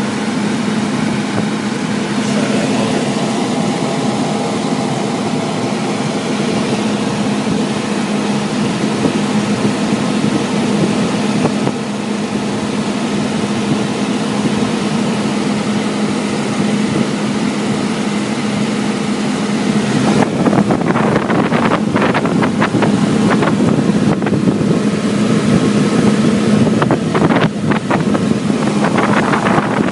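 Package HVAC unit's belt-driven blower running steadily on a freshly replaced, properly tensioned belt, with a constant hum. From about two-thirds of the way in, wind buffets the microphone over it.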